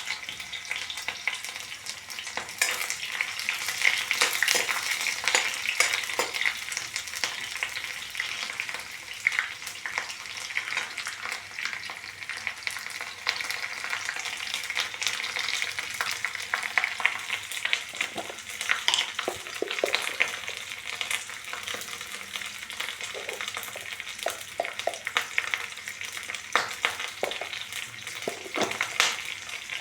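Food frying in hot oil in a pan, with a steady crackling sizzle and frequent clicks and scrapes of a spoon or spatula stirring it.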